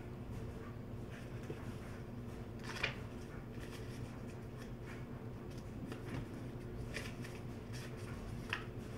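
Faint rustles and light taps of tarot cards being handled and drawn from the deck, a few scattered strokes over a low, steady hum.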